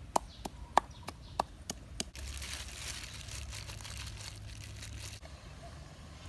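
A wooden pestle pounding in a clay mortar, sharp knocks about three times a second. About two seconds in it cuts to a steady rustling and squishing of plastic-gloved hands kneading meat in a bowl, which stops suddenly about five seconds in.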